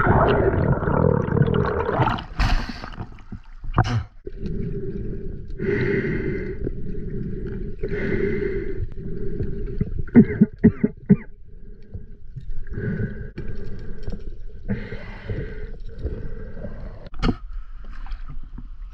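A spearfisher's heavy breathing, muffled and gurgly from the water, in swells every couple of seconds over a steady low hum. A cluster of sharp clicks comes about ten seconds in.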